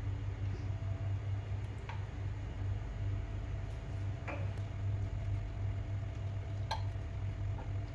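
Steady low electrical hum from a portable electric cooktop under a pan of sauce, with three light clicks about two, four and seven seconds in.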